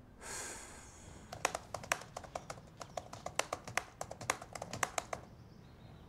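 A short whoosh, then typing on a laptop keyboard: irregular keystrokes several a second for about four seconds, stopping shortly before the end.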